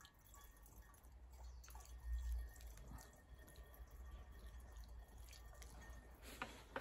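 Petrol dripping and trickling faintly through a small plastic funnel into an aluminium bottle, with a few faint clicks near the end.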